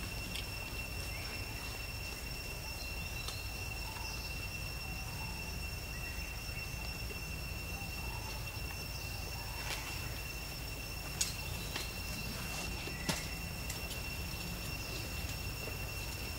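Steady, high insect drone: one unbroken tone with a fainter one above it, over a low rumble of outdoor background noise. Two sharp clicks, about two seconds apart, in the second half.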